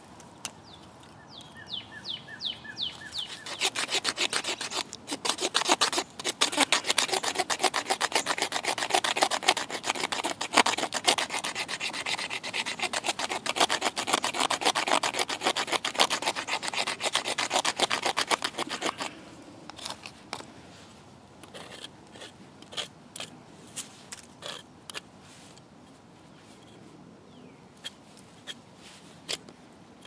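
A multi-tool blade scraping a wooden stick to make fine tinder shavings. The scraping is a fast, dense run of rasping strokes from about four seconds in to about nineteen seconds, then it thins to a few scattered scrapes and taps.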